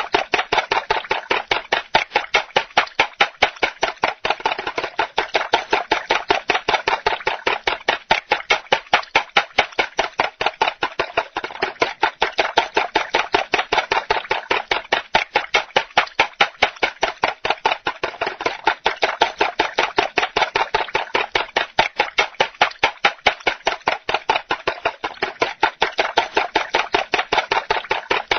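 Raw eggs being beaten in a bowl for scrambled eggs or a French omelette, the utensil clicking against the bowl in a quick, steady rhythm of about four to five strokes a second.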